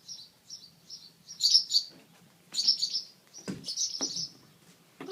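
Small songbirds chirping: short, high notes repeated several times a second in clusters. Two brief knocks sound about three and a half and four seconds in.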